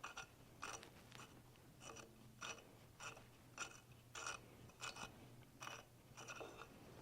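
Faint ratchet wrench clicking in short strokes about twice a second as a 5/8-inch motor mount bolt is turned out by hand.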